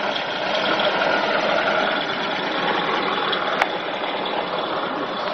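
Car engine running steadily, heard from inside the cabin, with a single faint click about three and a half seconds in.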